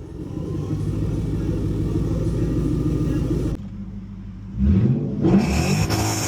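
Lexus GS400's 1UZ V8 running through a 2.5-inch straight-pipe exhaust with stock catalytic converters. It idles with a steady low drone, which drops off suddenly a little past halfway. The engine is then revved, its pitch climbing quickly.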